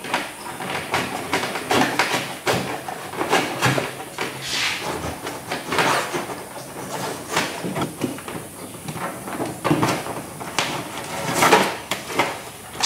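Irregular scraping, rustling and light knocks of electrical wire being pulled through drilled holes in a small boat's deck panel, with hands brushing and bumping against the hull.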